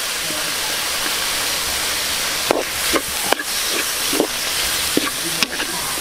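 Sliced mushrooms and mussel meat sizzling in hot oil in a large wok. From about halfway in, a spatula scrapes and knocks against the pan in short strokes as the mix is stirred.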